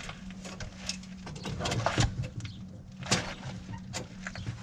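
Scattered sharp clicks and knocks of hand work on a side-by-side's parking brake, the lever and cable being tried out after a cable replacement. A faint steady low hum runs underneath.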